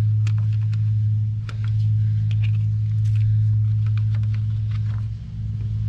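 Light clicks and taps from an outside dryer vent cover being worked off the wall, over a loud steady low hum.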